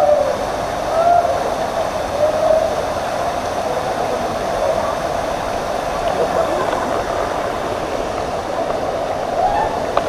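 Steady rush of a waterfall plunging into a rock pool, with the stream running over rocks below it. A few short calls rise and fall over the water in the first three seconds and again near the end.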